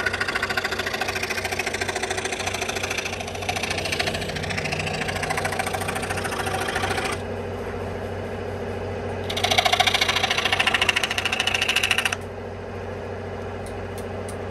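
An electric woodworking power tool running with a fast, even buzz. It is loud at first, drops quieter about seven seconds in, comes back loud about two seconds later and drops quieter again near the end.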